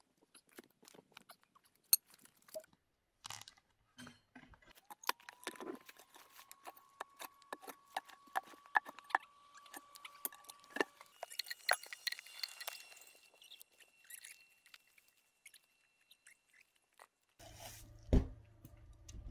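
Scattered light knocks, taps and crunches of long-handled tools and footsteps working a cut log on the forest floor, with a louder knock about two seconds in. A faint, thin high tone holds steady for several seconds in the middle.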